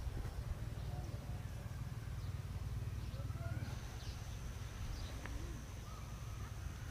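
Rural outdoor ambience: scattered faint bird chirps over a steady low rumble, with a thin, high, steady tone coming in about halfway.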